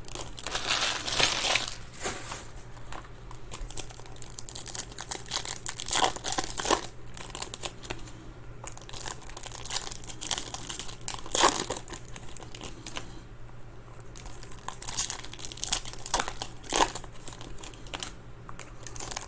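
Foil trading-card pack wrappers being torn open and crinkled by hand, in irregular rustling bursts.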